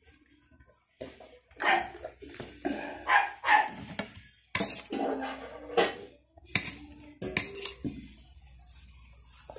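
A dog barking repeatedly, many short barks with some in quick pairs, starting about a second in.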